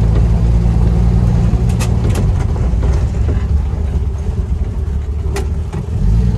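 1967 Willys Rural's six-cylinder engine running steadily while the car is driven, heard from inside the cabin as a loud low drone. A few light clicks sound over it.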